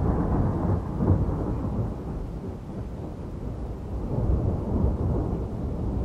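Rolling thunder from a thunderstorm: a continuous low rumble that swells about a second in, eases off in the middle and builds again toward the end.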